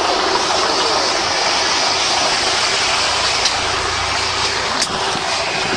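Steady rushing noise of a motor vehicle, with two brief clicks about three and a half and five seconds in.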